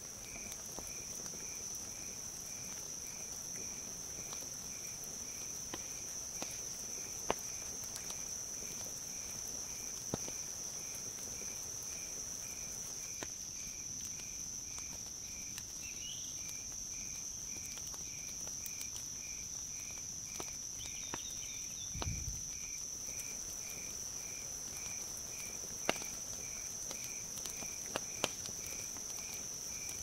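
Crickets and other night insects chirping. One makes a steady high trill, another a slower chirp repeating evenly about twice a second. Over them comes the occasional sharp pop and crackle of a wood campfire.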